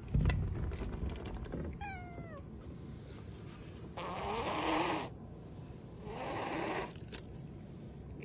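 A domestic tabby cat gives one short, falling meow, then hisses harshly twice, each hiss about a second long and about two seconds apart. A low rumble sounds at the very start.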